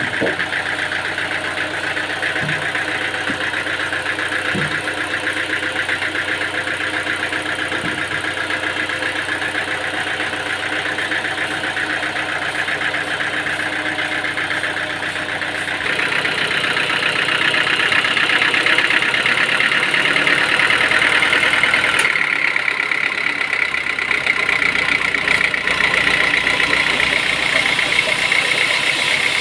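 Sawmill machinery running steadily, with a constant mechanical whine and hum; it grows louder and higher-pitched about halfway through, as if a cut were under way.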